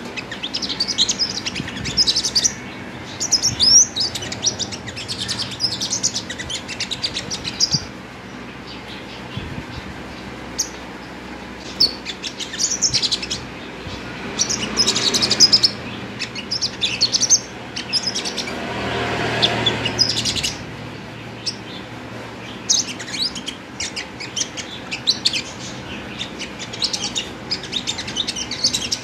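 Caged sunbird, the bird keepers' "five-colour sunbird", singing in quick, high twittering chirps and trills that come in bursts with short pauses. A low rushing noise swells up twice near the middle.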